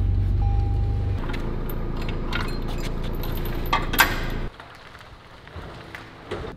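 A vehicle running with a steady low rumble and a short two-part chime at the start, a few clicks and a louder knock about four seconds in; the rumble cuts off suddenly at about four and a half seconds.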